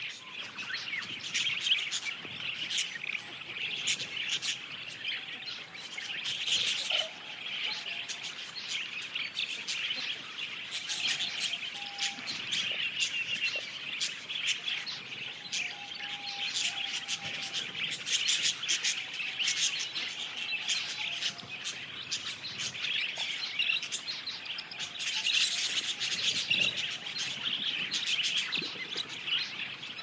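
A flock of monk parakeets calling: a dense, unbroken chatter of many overlapping high-pitched chirps.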